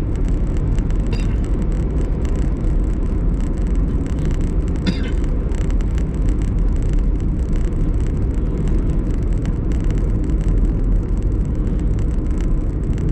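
Steady low rumble of a car driving along a road, heard from inside the cabin: tyre and engine noise with no changes.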